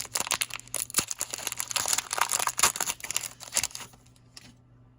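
Foil wrapper of a Magic: The Gathering set booster pack being torn open and crinkled, with dense crackling for about four seconds before it goes quiet.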